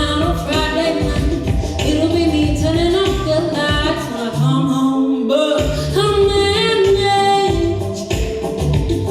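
Live band playing with a lead singer and backing vocal harmonies. The bass drops out briefly about five seconds in.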